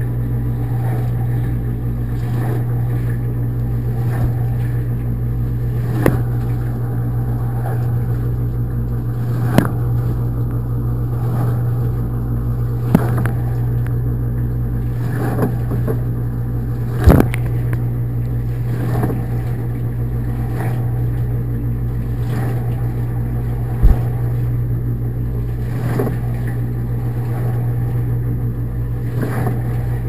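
Dishwasher running a wash cycle, heard from inside the tub: a steady hum of the circulation pump under the hiss of spraying water. A handful of sharp knocks stand out over it.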